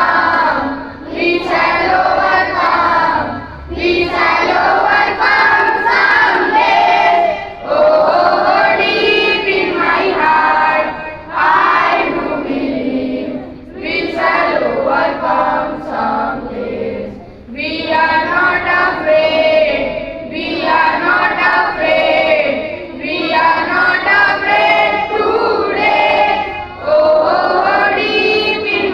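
A group of schoolchildren singing together in unison, in phrases of about two seconds with short breaks between.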